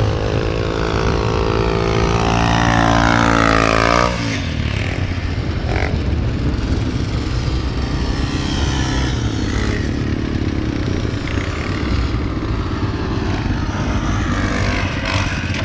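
ATV (quad bike) engine revving, climbing in pitch for about four seconds, then cutting back abruptly. Engine noise carries on after that and rises in pitch again a couple of times.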